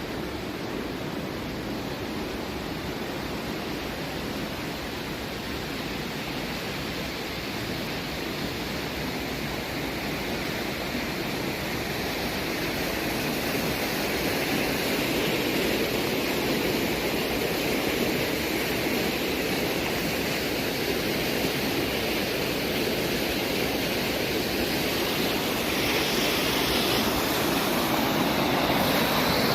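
Sea surf: waves washing ashore in a steady rush, swelling gradually louder over the second half, with a brighter hiss of breaking water near the end.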